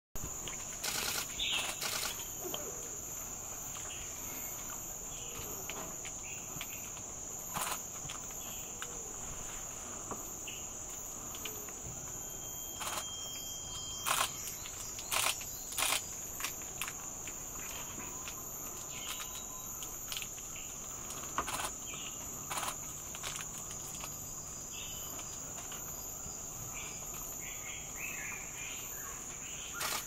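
Steady high-pitched drone of an insect chorus, with short sharp calls or clicks breaking in now and then, a cluster of them in the middle, and one brief thin whistle.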